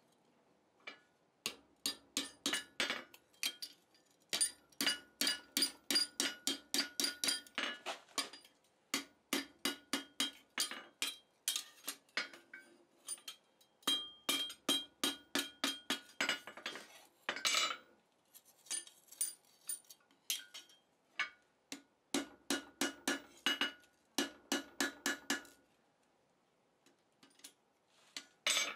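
Hand hammer striking the hot jaws of blacksmith's rivet tongs on the anvil, in quick runs of ringing blows about four a second with short pauses between runs. This is the jaws being adjusted at a forging heat.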